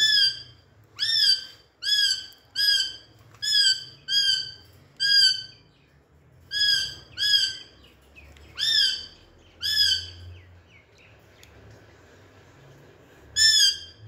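Pet Psittacula parakeet giving a series of short shrill screeches, about one every 0.7 seconds, each sweeping up sharply at its start; the calls stop for a few seconds, then one more comes near the end.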